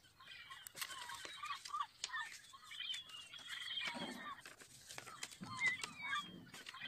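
Birds chirping and calling over and over in the background, with the crisp rustle and crinkle of paper being handled and folded.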